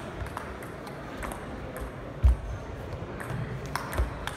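Table tennis ball clicking off bat, table and floor at irregular intervals, with one much louder low thump a little over two seconds in.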